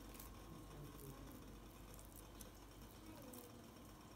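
Near silence: faint handling sounds of raw minced-meat filling being pressed by hand into the slits of whole eggplants, with a few faint clicks.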